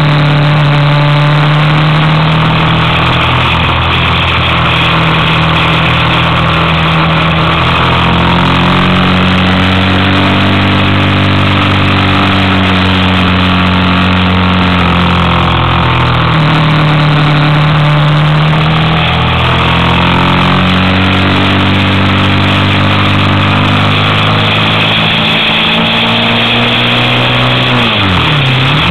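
Motorcycle engine running under steady load on a climb, its note rising and falling a little with the throttle, over wind rush. Near the end the revs drop sharply and climb again at a gear change.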